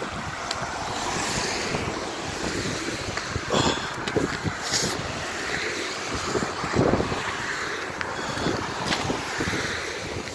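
Wind buffeting a phone microphone, a steady rushing noise with a few louder gusts, while a car drives by on the slushy, snow-dusted road.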